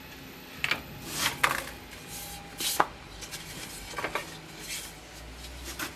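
Workbench handling: grooved wooden scabbard boards and metal tools are knocked together and set down on the bench, making a scattered series of sharp clacks and knocks.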